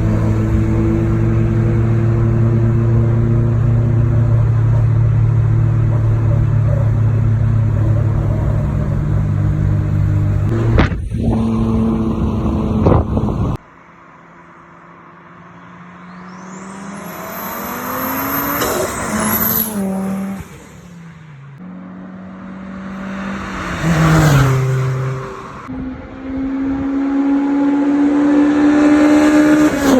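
Rally car engines. First an engine runs loud at a steady, unchanging pitch. After a sudden cut, a car approaches and passes at speed, its pitch stepping with gear changes and falling as it goes by. Another engine revs up with rising pitch near the end.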